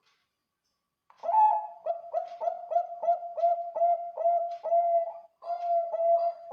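Zebra dove (Bangkok-strain perkutut) singing: a quick run of short, upward-flicking coos, about three a second, starting about a second in, with longer held coos near the end.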